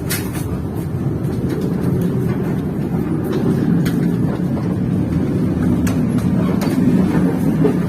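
Train running along the track: a steady low rumble with scattered, irregular clicks.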